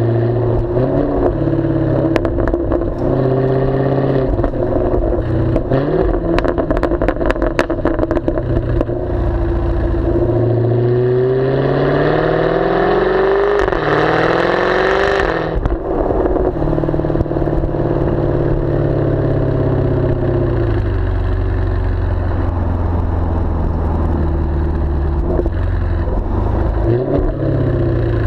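Exhaust of a Jaguar F-Type V8S's supercharged 5.0-litre V8 with its active exhaust baffles open, heard at the tailpipes while driving. Early on it revs up and down with a run of sharp cracks typical of pops on the overrun. About ten seconds in, the pitch climbs steadily under acceleration, cuts off suddenly, and then the car settles into a steady cruise.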